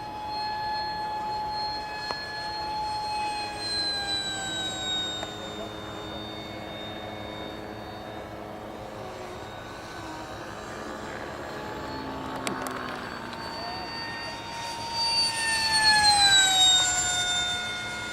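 Electric ducted fan of a Habu RC jet whining in flight. The whine holds a steady pitch, then grows loudest near the end as the jet passes close and slides down in pitch as it goes away.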